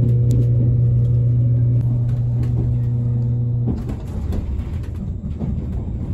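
JR Kyushu 787 series electric train running, heard from inside the cabin: a loud, steady low electrical hum that cuts off suddenly a little over halfway through, over the constant rumble of the wheels on the track, which carries on alone afterwards.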